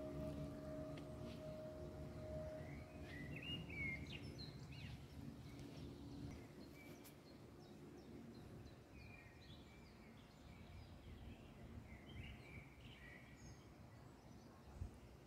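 Faint outdoor ambience: a low rumbling background noise, with small birds chirping a few times in short, high calls. A held tone fades out in the first couple of seconds.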